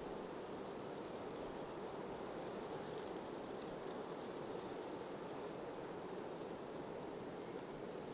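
A small songbird gives one short, very high trill of rapid notes about five seconds in, with a faint high note before it, over a steady rush of wind through foliage.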